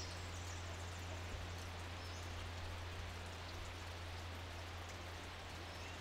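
Forest ambience: a steady soft hiss of distant rushing creek water under a low steady hum, with a few faint high chirps.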